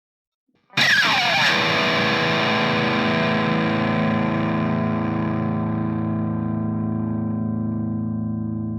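Pick slide on a distorted electric guitar: under a second in, a pick scrapes down the wound strings in a falling screech lasting about half a second. The strings then ring on in a sustained distorted note, slowly fading.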